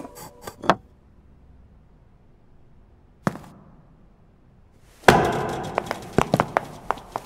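Sound-effect knocks and taps. A few small clicks come right at the start and a single knock follows about three seconds in. A little after five seconds there is a sudden loud thud with a short ringing tail, then a quick run of sharp taps and clicks.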